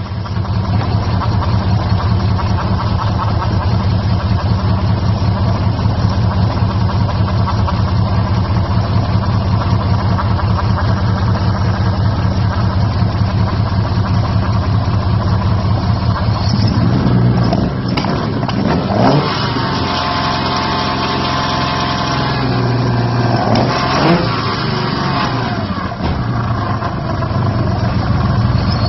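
Alfa Romeo 75 24v engine idling steadily, then revved a few times from about halfway through, its pitch rising and falling before settling back. The owner is showing it for a weird sound he hears from the engine.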